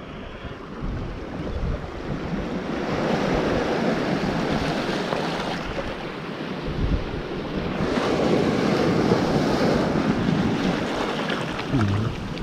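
Waves breaking and washing up the beach in rough surf, with wind buffeting the microphone. The surf swells about three seconds in and again about eight seconds in.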